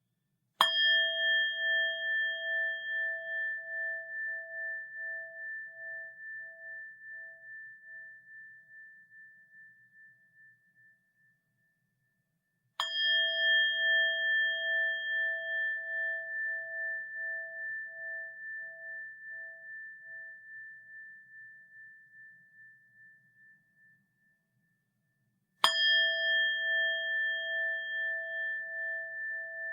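A Buddhist rin (metal bowl bell) struck three times, about twelve seconds apart. Each strike rings out in a long, slowly fading tone with a steady wavering pulse; the third is still ringing at the end.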